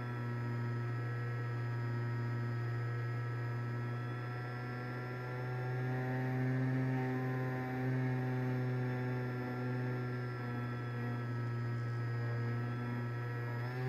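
Electric motor and propeller of an FPV flying wing, heard from a camera on the plane: a steady low hum with several steady whining tones above it, swelling slightly about halfway through.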